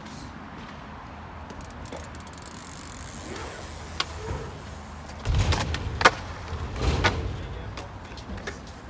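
Dirt jump bike riding across skatepark ramps: a low tyre rumble that swells in the second half, with a few sharp knocks of the wheels on the ramps, the loudest about six seconds in.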